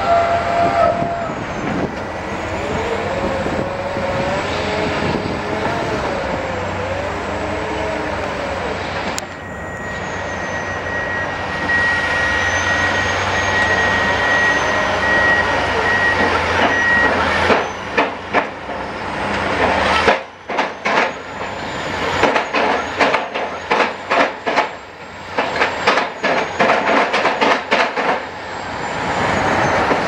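Diesel engines of heavy construction machinery running, with a pitch that wavers up and down in the first seconds. A reversing alarm beeps for several seconds around the middle, and the second half holds a run of irregular knocks and clatter.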